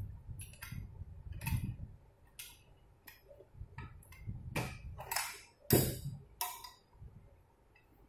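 Irregular metallic clicks and knocks from the stainless-steel front panel and lever handle of a fingerprint door lock being handled and fitted against a door, with low handling bumps. The loudest knock comes a little before the sixth second.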